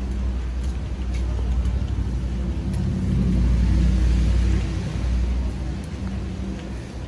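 Loud, steady low rumble of outdoor city noise on a rainy night. It swells, with a hiss rising over it, about three to five seconds in, then eases off.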